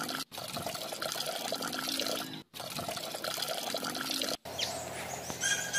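Wet cement slurry pouring and gurgling from a plastic bag into a small cardboard mould. The sound cuts out briefly three times, and near the end a high steady tone comes in.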